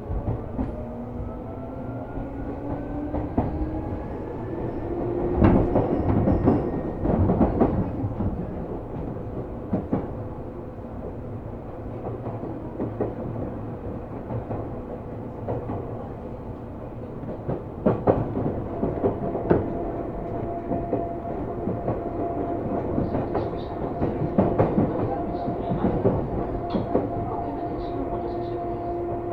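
Running sound of a Seibu New 2000 series electric commuter train heard from inside the car. The traction motor hum rises in pitch as the train gathers speed, and the wheels clatter over rail joints. A steady motor tone holds through the second half.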